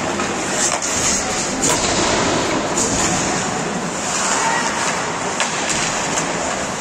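Ice hockey play in an indoor rink: a steady wash of arena noise with skate blades scraping the ice and a few sharp clacks of sticks and puck.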